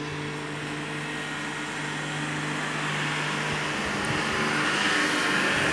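School bus engine running with a steady low hum, the sound swelling louder toward the end as the bus moves along the street.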